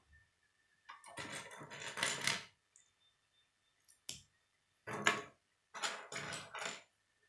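Plastic K'nex parts clattering in bursts as a hand rummages through a loose pile, with single sharp clicks of pieces being snapped onto a gear in between.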